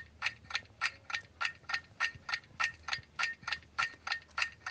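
Ticking-clock countdown effect: an even, fast run of sharp ticks, about three a second, marking that the time to answer is running out.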